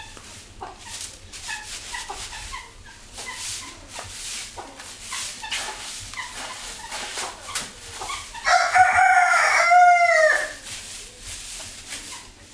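A rooster crows once, about two seconds long, starting past the middle. Under it runs a steady series of short scratchy swishes from a broom sweeping.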